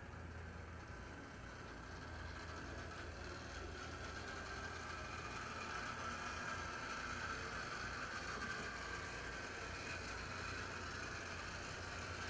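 HO-scale brass model diesel locomotive (Southern Pacific SD70M) running along its track: a steady whine from its electric motor and gearing over a low hum, growing gradually louder.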